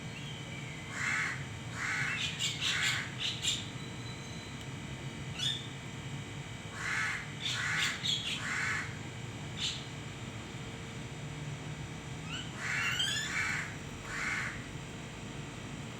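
Crow cawing in three bouts of three harsh caws each, with small birds chirping in short high notes between them.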